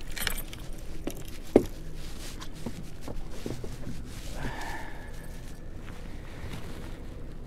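Handling noise on a small fishing boat while a hooked fish is fought on rod and reel: footsteps, scuffs and scattered knocks. One sharp knock comes about a second and a half in, and a brief whine about four and a half seconds in.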